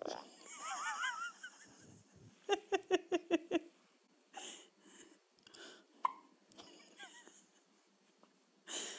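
A one-week-old baby's hiccups: short, sharp hics repeating every second or less, with a brief run of quick voiced sounds a few seconds in.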